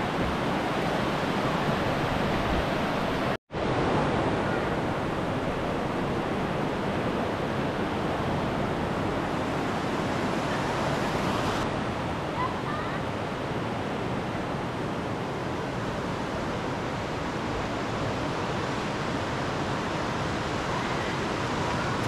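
Steady rushing noise with no distinct events, broken by a momentary dropout about three and a half seconds in.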